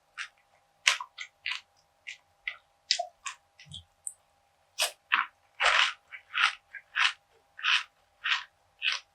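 Close-miked chewing of crunchy food: scattered sharp crunches, then from about halfway a steady chew with a crunch roughly every two-thirds of a second.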